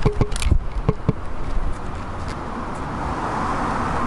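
Handling noise from a handheld camera being swung about: a few sharp knocks and clicks in the first second or so over a low rumble, then a steady hiss.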